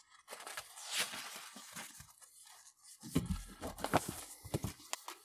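Paper pages of a spiral-bound paperback book rustling as they are flipped, then the book being closed and turned over in the hands, with several light taps and knocks in the second half.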